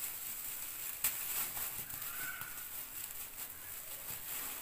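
Thin polythene bag crinkling and rustling as it is twisted and knotted shut by hand, with one sharp click about a second in.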